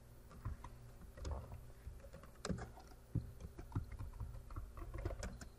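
Computer keyboard typing: a run of irregular, faint keystroke clicks as a short command and a password are entered.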